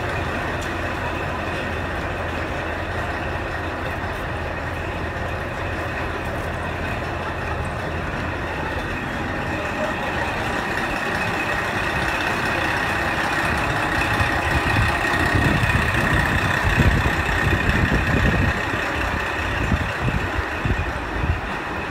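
Steady low hum of a train's engine idling at a station platform. From about fourteen seconds in a louder, uneven low rumble builds, with a faint high whine over it.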